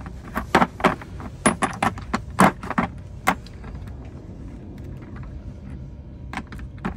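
Steel sockets and a socket extension clinking as they are handled in a plastic socket-set case: a quick run of sharp metallic clicks for the first three and a half seconds, then two more near the end.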